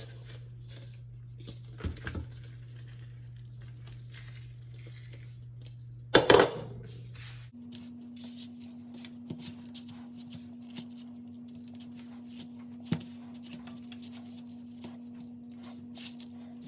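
Hands kneading sticky biscuit dough on a floured surface: soft tearing, squishing and patting sounds with small scattered ticks, and one louder thud about six seconds in. A steady low hum runs underneath and shifts to a higher pitch about halfway through.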